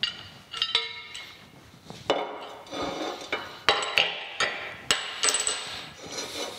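Painted cast-iron vise swivel-base parts, a ring and bolts being set down and shifted on a metal workbench top. It is a string of metal-on-metal clanks, some of them ringing.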